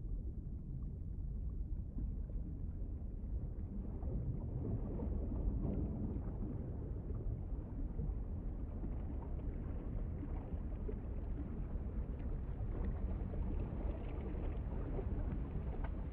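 Dark ambient music: a low, rumbling drone texture with no clear melody or beat, slowly growing brighter.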